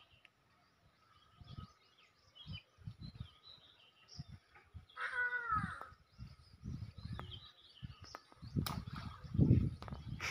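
A crow caws once about five seconds in, over faint chirping of small birds and irregular low rumbles.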